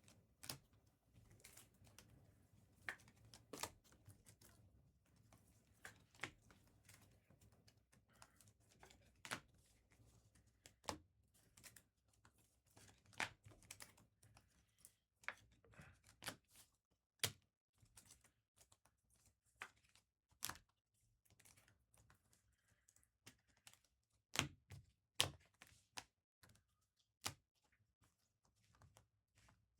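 Scattered quiet clicks and taps at irregular intervals, with a couple of louder taps close together about three quarters of the way through.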